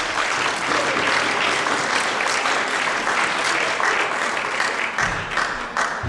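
Audience applauding, with dense clapping throughout; a low thump sounds near the end.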